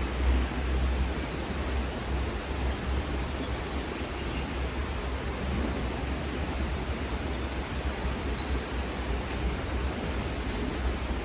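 Steady heavy rain, with a constant low rumble underneath and a few faint high chirps.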